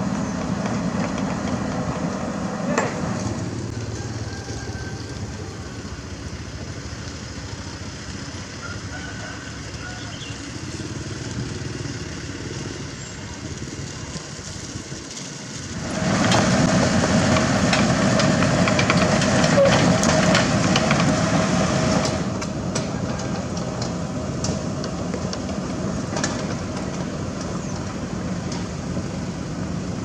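Diesel construction machinery: a Kobelco SK75 mini excavator's engine running steadily as it digs. About halfway through it changes suddenly to the louder engine of a Toyota Dyna dump truck driving along, which eases down again about six seconds later.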